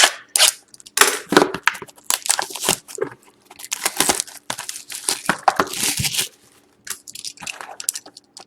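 Plastic shrink-wrap being torn and crinkled off a sealed box of trading cards, in irregular crackling bursts with a short pause near the end.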